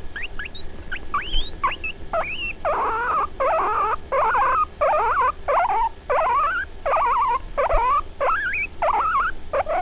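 Guinea pig squealing over and over: short, high calls that glide in pitch. They are soft for the first two seconds, then louder, at about one and a half calls a second.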